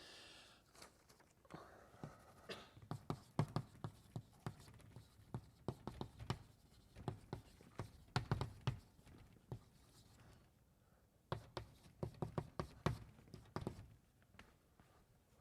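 Writing on a lecture-hall board: a faint, irregular run of sharp taps with a few short scratches as the strokes are drawn.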